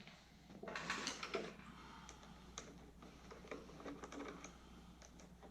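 Faint small clicks and light clatter from hands and a screwdriver working on a leaf blower's plastic housing, with a louder burst of handling noise about a second in.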